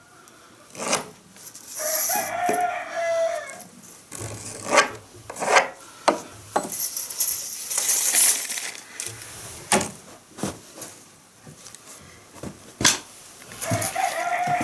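A rooster crows twice, about two seconds in and again near the end. Between the crows come sharp knocks and clicks of a tape measure and a wooden plank being handled.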